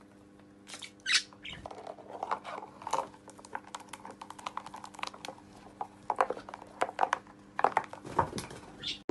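Clear plastic box tapping, clattering and scraping on a wooden tabletop as a budgie pushes and tips it with its beak and body: irregular clicks and short scrapes, loudest about a second in.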